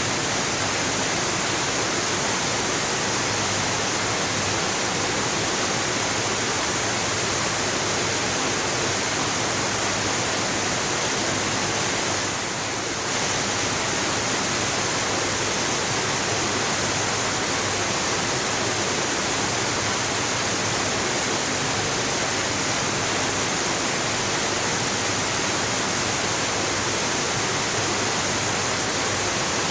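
Waterfall: a steady, even rush of falling water, dipping slightly for a moment about twelve seconds in.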